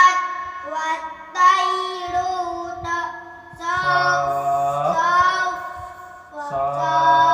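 Qur'an recitation, chanted slowly in a melodic style by a single voice. It comes in three long phrases of held, ornamented notes with short breaks between them.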